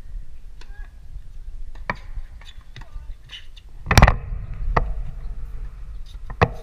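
Tennis rally: a few sharp pops of the ball being struck and bouncing. The loudest is a racket hit about four seconds in.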